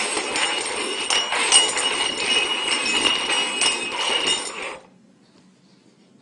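Cups being shuffled and slid over a hard surface for a hidden-object game, clattering and clinking with a steady ringing jingle, for about five seconds. It then stops abruptly.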